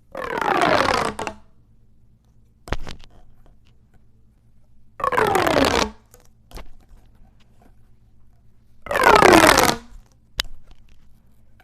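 Ribbed plastic pop tube fidget toy being stretched three times. Each stretch is about a second of fast ratcheting zip that falls in pitch. A couple of sharp plastic clicks come between the stretches.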